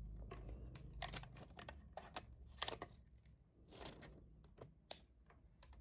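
Light, irregular clicks and taps as a Logitech G Pro mechanical gaming keyboard is handled, with a brief soft swish about four seconds in.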